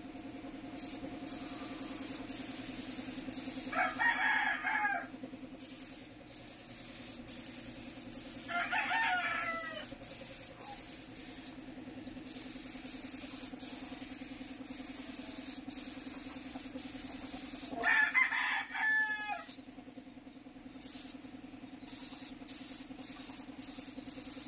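A rooster crowing three times, each crow about a second long, over a steady low hum.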